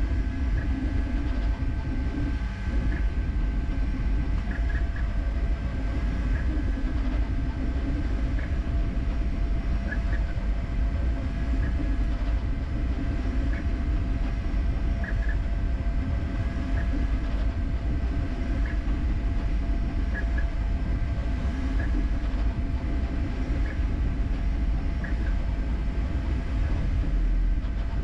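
Creality K1C 3D printer running a high-speed print: a steady mechanical hum and low rumble from its motors and fans, with two held tones and short chirps every second or two as the print head moves.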